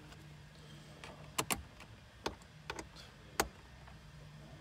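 About five sharp, irregular clicks and taps of a screwdriver working the head-unit mounting screws and knocking against the dash plastic as the screws are loosened a fraction. A faint steady low hum runs underneath.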